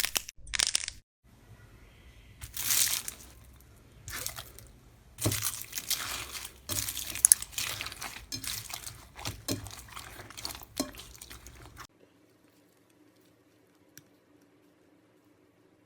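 Slime being squeezed and pressed by hand, giving irregular crunching and crackling bursts with some wet squishing, which stop about three-quarters of the way through.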